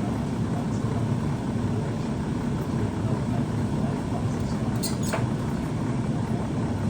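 Steady low rumbling noise from the stove as a pot of soup boils, with two faint clicks about five seconds in.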